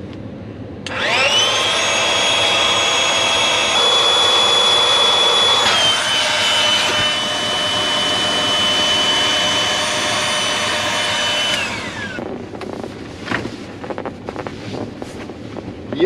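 Small electric air pump inflating an air mattress: it starts about a second in, runs with a steady high whine that drops slightly in pitch partway through, then is switched off and winds down.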